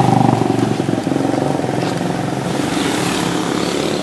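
Motorcycle engine running: a steady, even hum that is loudest at the start and eases off slightly after about half a second.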